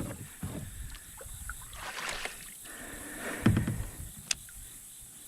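Handling noises in a fishing kayak: scattered knocks against the hull, a short rushing noise about two seconds in, and a loud low thump about three and a half seconds in.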